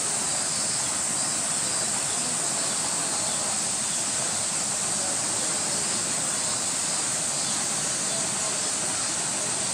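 Cicadas droning steadily in a continuous high-pitched chorus.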